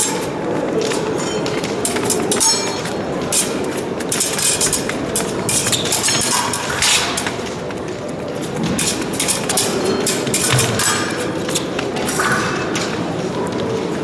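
Épée blades clicking and scraping against each other and fencers' feet tapping on the piste: many short, sharp clicks scattered throughout, over the steady din of a large sports hall.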